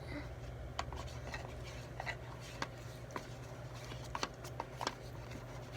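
Scattered faint clicks and light scrapes of hands handling slime-making materials and containers, over a steady low hum.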